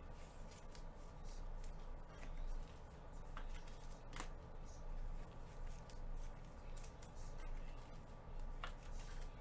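Trading cards being handled and sorted: scattered light clicks and rustles of cards, over a low steady hum.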